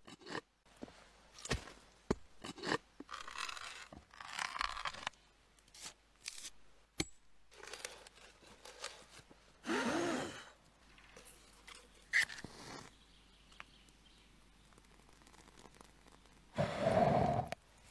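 A blade scraping and carving into a wooden log, with scattered sharp knocks and clicks. A louder rushing burst of about a second comes near the end.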